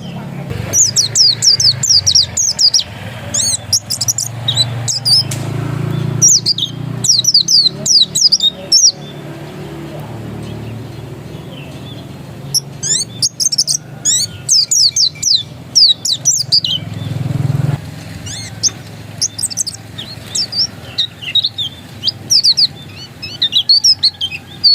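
Pleci dakun white-eye singing in repeated bursts of fast, high chirps, with a pause of about three seconds near the middle. A low steady hum runs underneath.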